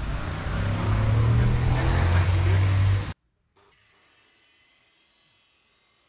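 Loud construction machinery noise with a steady low engine hum, cut off abruptly about three seconds in, leaving near silence.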